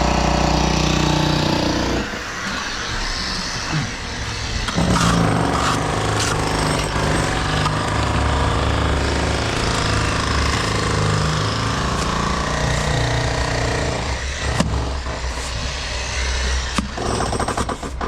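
Heavy construction machinery running loudly. A steady engine tone gives way, about two seconds in, to fast, continuous pounding like a hammer or breaker at work, with occasional sharp knocks.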